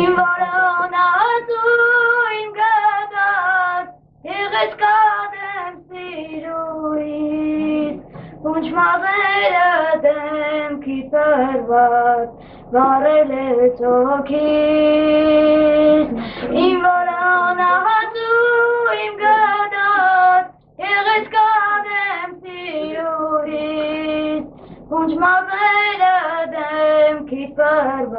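A boy singing solo in a high, unbroken voice, in phrases with short breaths between them and a long held note about halfway through.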